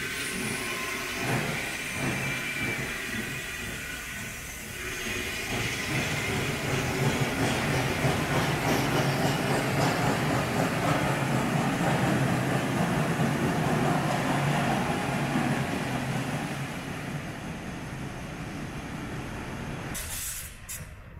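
Czech 2-8-0 steam locomotive 434.2186 (ex-kkStB Class 170) moving off and rolling past, with steam hissing from its cylinders and its running gear and wheels working. The sound builds and is loudest through the middle, then fades away.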